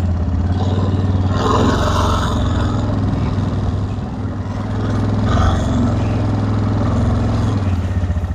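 ATV engine running steadily at a low, even speed, with a brief rise in rustling and rattling about two seconds in and again near five seconds.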